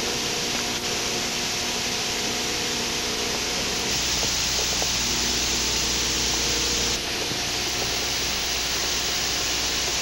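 Steady industrial hum and hiss of a factory hall with induction furnaces running, several steady tones over a broad noise. The sound shifts abruptly twice, about four and seven seconds in.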